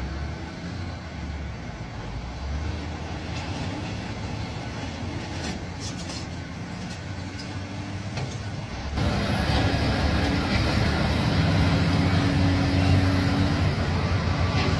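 Forklift engine running while its hydraulics work a tire-handling attachment, a steady mechanical hum with a few sharp ticks. About nine seconds in, the sound jumps louder, with a steadier low hum and a higher held tone.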